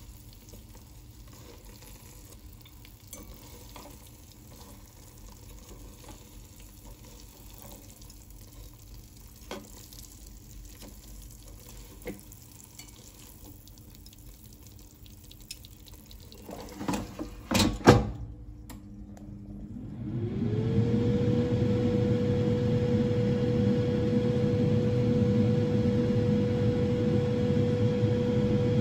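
Faint sizzling with a few light taps of plastic chopsticks against the air fryer pan. A cluster of clunks follows as the basket is pushed shut. About two-thirds of the way in the air fryer's fan starts up with a rising hum, then settles into a steady whir as it heats.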